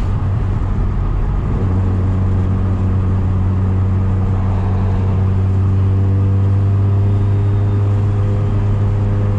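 Street-ported, single-turbo Mazda RX-7 rotary engine running steadily at light cruise, heard from inside the cabin as a low drone over tyre and road noise.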